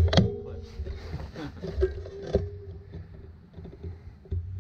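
A few sharp clicks and knocks of a rifle being worked and shifted against an aluminium stepladder, bunched near the start and spaced out afterwards, over a faint steady hum.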